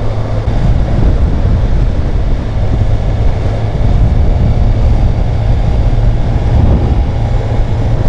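Steady wind rush over the camera microphone of a moving sport motorcycle, with the 2012 Suzuki GSX-R 750's inline-four engine running underneath at cruising speed. The sound is a constant low roar with no distinct events.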